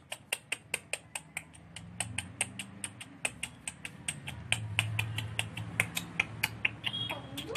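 Rapid, evenly spaced clicking, about four to five clicks a second, over a low steady hum.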